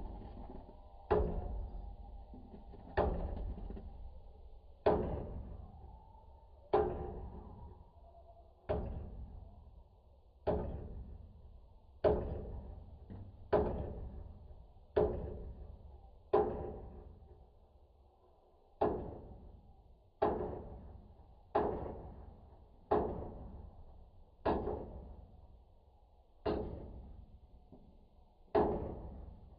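A steady series of sharp knocks, about one every one and a half to two seconds, each ringing briefly and dying away.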